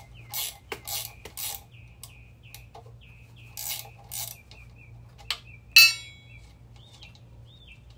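Ratcheting wrench clicking in short spells as it turns the bolts on the axle-end flange of a 1955 Chevy rear axle housing. About six seconds in comes one loud metal clank that rings briefly.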